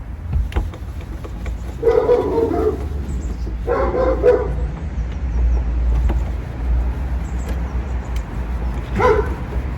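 A big dog barking in three bouts, about two seconds in, about four seconds in, and once briefly near the end, with a few light clicks between.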